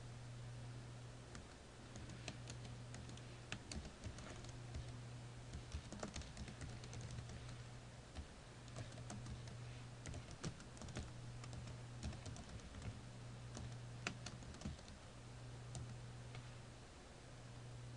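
Typing on a computer keyboard: irregular key clicks, sometimes in quick runs, over a low steady hum that briefly drops out a few times.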